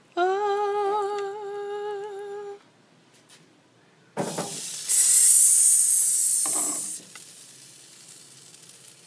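A woman hums one held note with a slight waver for about two and a half seconds. About four seconds in, sauced beef ribs laid on the hot grate over charcoal set off a loud sizzle, which settles into a quieter, steady hiss near the end.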